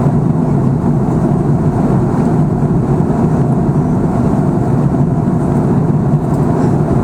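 Steady cabin noise of an Airbus A340 airliner in cruise: an even engine-and-airflow rumble, strongest in the low range, that does not change.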